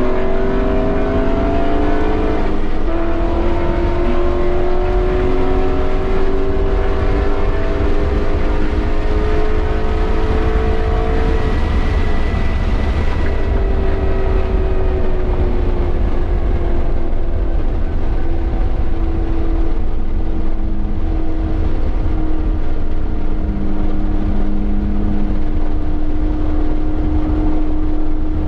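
2017 BMW M240i's turbocharged 3.0-litre inline-six pulling hard through the gears: the revs climb, drop at an upshift about two and a half seconds in, then climb slowly for about nine seconds. The engine then eases off and runs at nearly steady, slowly falling revs for the rest of the stretch, over a steady low rumble of wind and road noise.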